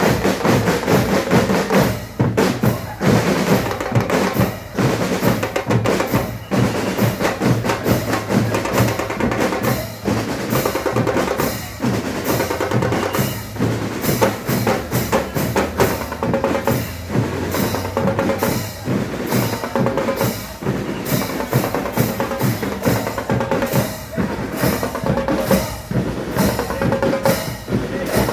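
A band playing music driven by drums, with bass drum and snare beating a steady rhythm under sustained pitched notes.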